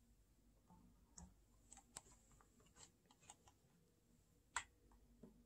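Near silence: room tone with a handful of faint, irregular clicks, the loudest about four and a half seconds in.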